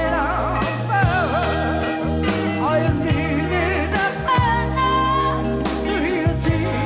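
Live band music from a studio-live recording played off cassette tape: a soul-rock number with a steady bass line under a bending, wavering lead melody that holds one long note about two-thirds of the way through.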